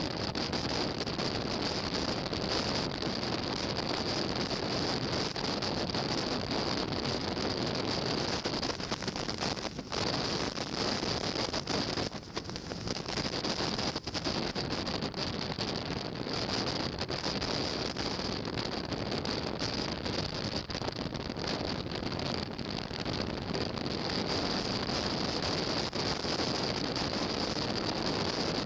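Motorcycle riding at road speed, heard from a bike-mounted camera: steady wind noise on the microphone mixed with engine and road noise, with a steady high whine running through it. The noise dips briefly about twelve seconds in.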